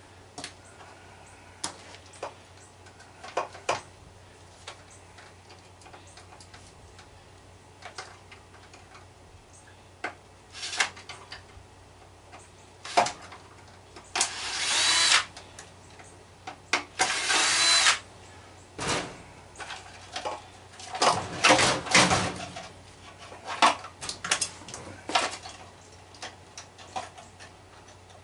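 Cordless drill backing screws out of an electric scooter's frame in two short runs of about a second each, midway, with a rising whine as it spins. Around them, clicks and clattering knocks of screws and metal parts being handled and pulled loose.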